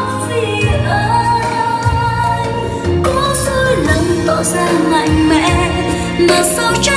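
Music with a woman singing over a steady bass line.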